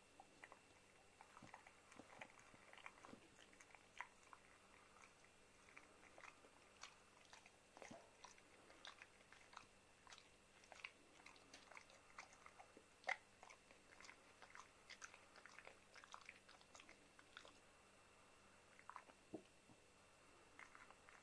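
A Chow Chow gnawing on a thin chew stick: faint, irregular crunching and clicking of teeth.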